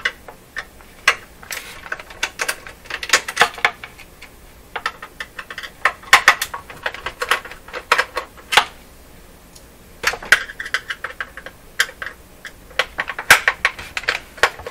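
Runs of quick clicks and clatter from a screwdriver backing screws out of the plastic back of a Sony HCD-CP300 micro hi-fi, with short pauses between the runs.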